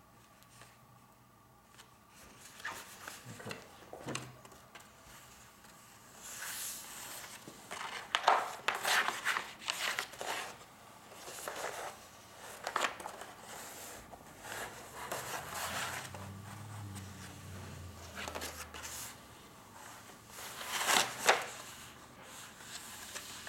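Large sheet of mounting paper being lifted, rolled back and smoothed by hand on a table, rustling and crinkling in irregular bursts, busiest around the middle and again near the end.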